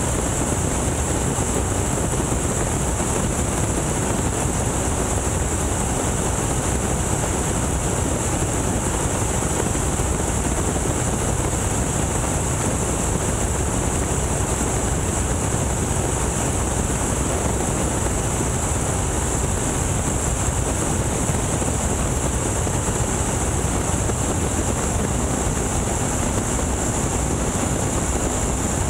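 Boeing Stearman biplane's radial engine running steadily at about 2,300 rpm in cruise flight, mixed with the rush of the airflow in the open cockpit.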